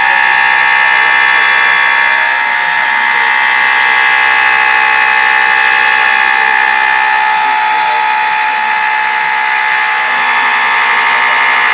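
Homemade CNC machine running, giving a loud, steady high motor whine.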